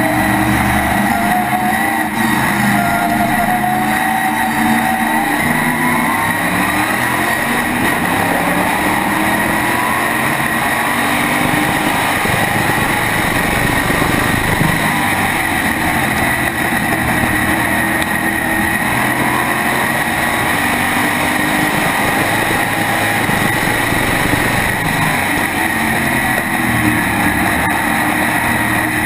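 Onboard sound of an SK modified race car's V8 engine running hard at racing speed, loud and continuous. Its pitch shifts up and down as the car goes through the laps.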